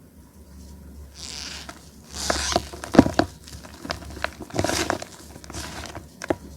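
A soft reformed gym chalk block topped with cornflour being crushed, giving squeaky crunching and powdery crumbling in several short bursts, with a few sharp cracks about three seconds in.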